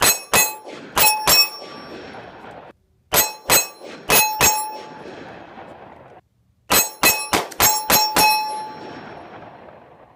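Bullets striking a 1/2-inch AR500 steel silhouette target in three quick strings of about four, five and seven hits. Each hit is a sharp clang that rings on in the steel, and the ringing fades out after each string.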